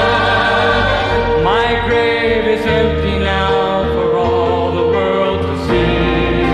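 A choir singing a Christian song over instrumental accompaniment, with long held notes and one rising vocal slide about a second and a half in.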